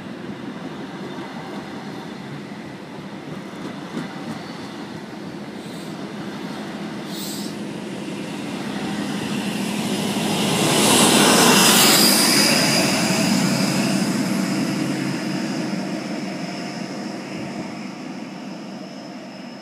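Class 43 HST diesel train running past the platform. The sound swells to its loudest about 11 to 12 seconds in, then fades away. Under it is a steady background hum from the cooling towers next to the station.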